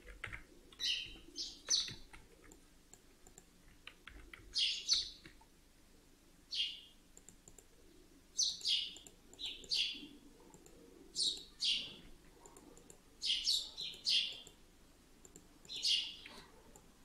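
A bird chirping in the background: short high chirps, often in pairs or threes, repeated every second or two.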